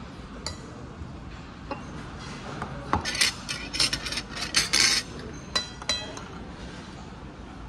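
Metal cutlery clinking and scraping against a plate, with a few scattered clicks at first, a run of loud quick scrapes and clinks about three to five seconds in, and a couple of ringing clinks around six seconds.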